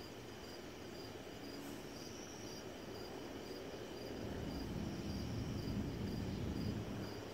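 Crickets chirping: an even, high-pitched pulse of about two and a half chirps a second, over a low background rumble.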